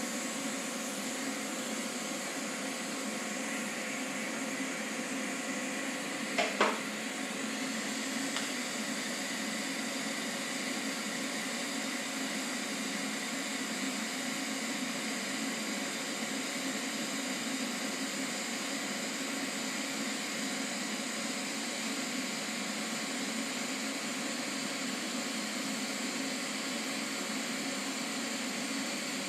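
A steady, even hum and hiss of running machinery, with two sharp clicks about six and a half seconds in.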